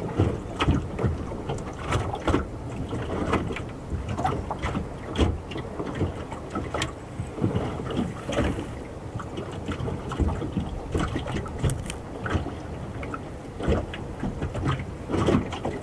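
Small waves slapping and lapping against the hull of a small moored fishing boat, in irregular knocks and splashes.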